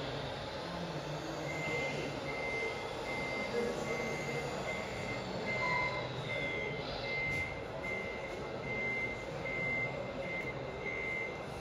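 Electronic beeping, a high steady tone repeating about twice a second, starting about a second and a half in, over a constant background noise.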